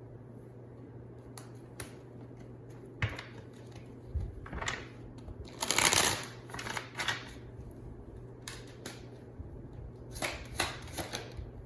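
Tarot cards being shuffled and handled: scattered short riffles and slaps, the loudest about six seconds in and another cluster near the end, over a faint steady hum.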